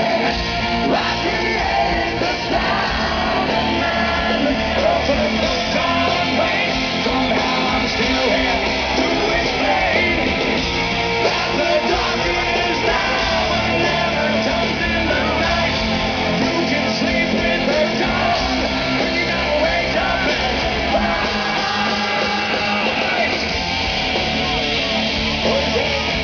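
Hard rock song playing loud and steady, a full band with a singer's sung and shouted vocals.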